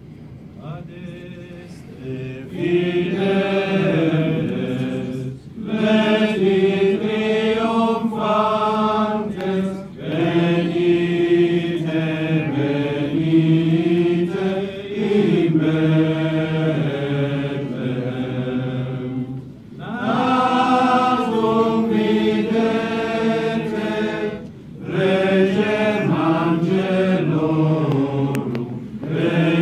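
Nuns and friars chanting a hymn together, men's and women's voices singing as one group, in long phrases with short breaks for breath between them.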